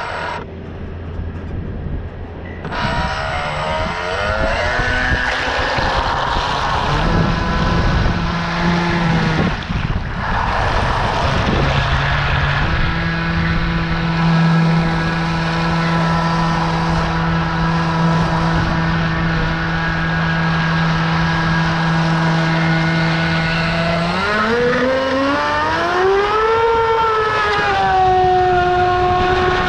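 Radio-controlled model boat's motor running under way, a steady pitched drone over the hiss of spray from the hull. Near the end the pitch climbs and then eases back a little as the throttle is opened and backed off.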